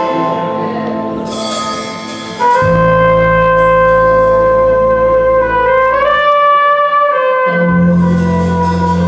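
Small jazz band's horns, trumpet or flugelhorn with trombone and saxophone, holding long sustained chords. A deep low note enters about two and a half seconds in, drops out briefly around the seventh second and comes back.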